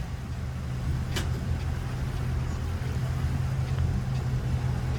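An engine running steadily at a low, even pitch, with one sharp click about a second in.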